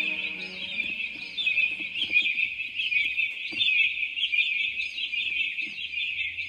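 Many small birds chirping continuously in a dense, high chorus. A soft sustained musical tone fades out about a second in.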